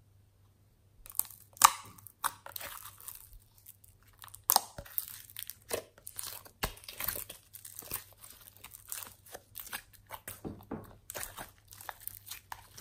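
Glossy slime peeled out of a plastic tray and stretched by hand, giving a dense run of sticky clicks, crackles and tearing sounds that begins about a second in.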